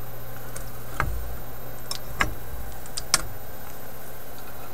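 Three light, sharp clicks about a second apart from pliers or wire cutters working capacitor leads on a radio chassis, over a steady low hum.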